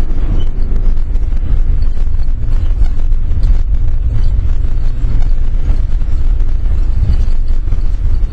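1994 Holiday Rambler Vacationer motorhome driving forward under power. From the cab its engine and road noise make a loud, steady low rumble.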